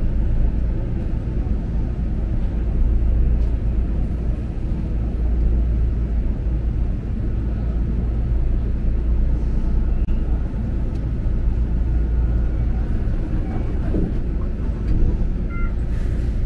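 Enoshima Electric Railway electric train running along the track, heard from inside the car: a steady low rumble of wheels on rails and running gear, with a few faint short tones near the end.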